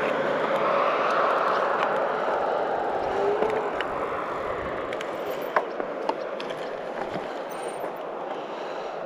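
An aircraft's engine drone slowly fading away as it passes over, with a couple of light knocks about halfway through.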